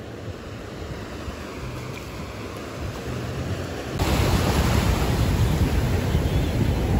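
Small waves washing up on a sandy beach, with wind on the microphone. The sound gets abruptly louder about four seconds in.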